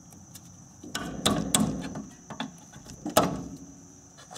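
Metal clanks and knocks of hand tools and brake parts being handled: a run of knocks about a second in and one sharp, loudest knock about three seconds in.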